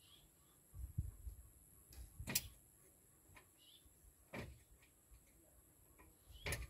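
Faint metallic knocks and clinks of hand tools working on the brake drum of a Toyota Land Cruiser BJ60, three sharp knocks about two seconds apart, with low rumbling handling noise in between. The brake is seized.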